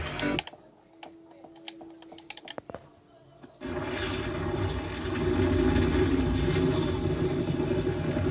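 Television soundtrack heard through the room, recorded off the TV's speakers. After a quiet stretch with a few clicks and a brief steady hum, a loud low rumble with sustained tones starts about three and a half seconds in, as a film logo and opening come on.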